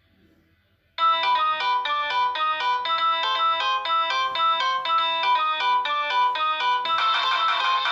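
A Nokia 6630 mobile phone plays a ringtone through its loudspeaker. After about a second of quiet, a fast melody of short, evenly paced electronic notes starts suddenly, with several notes sounding at once. It grows fuller, with more layers, near the end.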